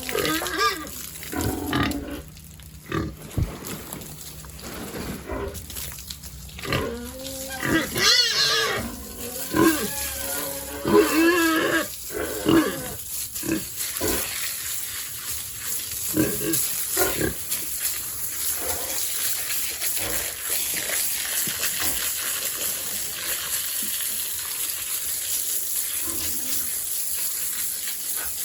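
Pigs grunting and squealing, the loudest squeal about eight seconds in. From about halfway through, the calls give way to a steady rush of running water.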